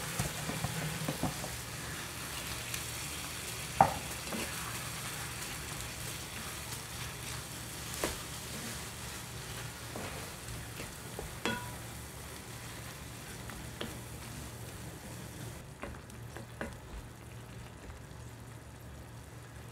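Ground beef sizzling in a frying pan with sautéed onion, garlic and tomato, stirred and broken up with a wooden spatula that knocks against the pan now and then. The sizzle thins out near the end.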